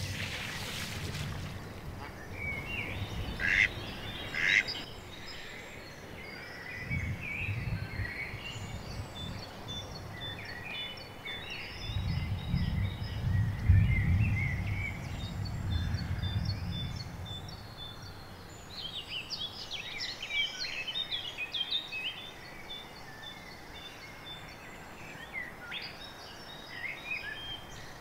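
Birds chirping and calling over an outdoor background, with spells of low rumble, the strongest around the middle.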